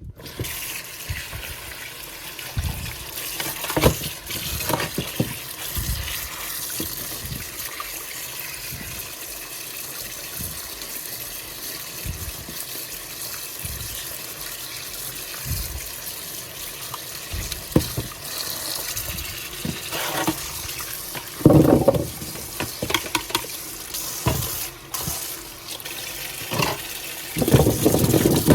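Running tap water while freshly dug potatoes are washed by hand, with scattered knocks of the potatoes being handled; the water gushes louder briefly about 21 seconds in and again near the end.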